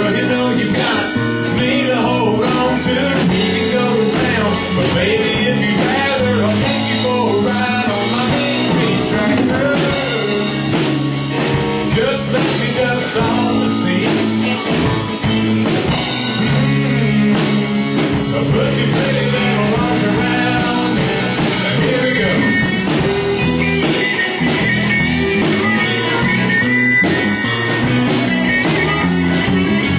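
Live country band playing an instrumental break, with guitar over a steady drum beat.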